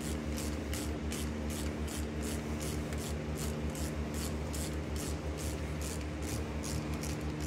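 Hand ratchet being worked back and forth on a hose-flange bolt of a Hitachi EX270LC-5 excavator's swing motor, a short rasping click about three times a second, over a steady low hum.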